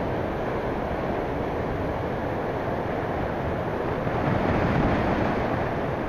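Typhoon surf breaking and washing toward the shore, a steady rush of waves that swells a little about two-thirds of the way through, with wind buffeting the microphone.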